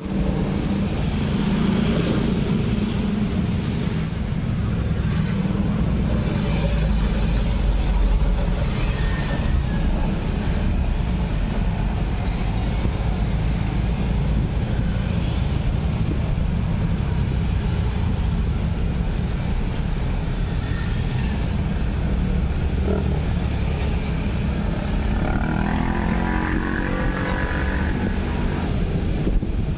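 Street traffic, mostly motorcycles and cars, running steadily across and past the crossing. A louder pitched engine sound passes near the end.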